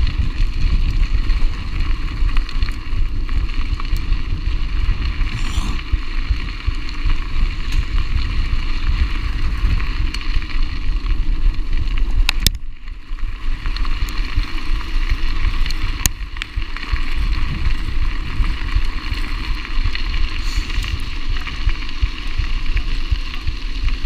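Mountain bike rolling fast on a loose gravel road: steady crunch and rattle of the tyres and bike over the stones, with constant wind buffeting on the camera's microphone. Near the middle the noise briefly drops and a few sharp clicks come through.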